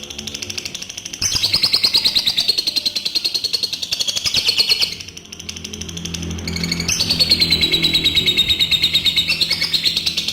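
Adult lovebird's long 'ngekek' chatter: rapid trains of high, buzzy chirps, about ten a second. It comes in two long bouts, the first starting about a second in and breaking off near the middle, the second starting about two seconds later and running on.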